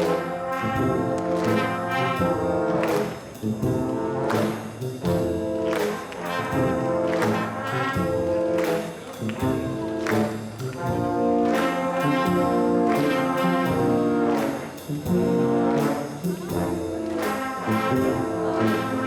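Brass instruments, trombones and trumpets, playing a lively piece of instrumental music: held chords broken by regular accented attacks.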